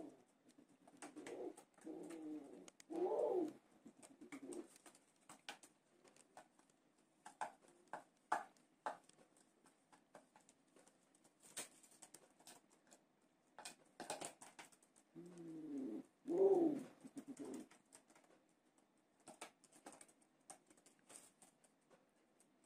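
Pigeons cooing in two bouts, one near the start and one about two-thirds of the way through. Between the bouts come a few sharp clicks of beaks pecking grain from a plastic bowl.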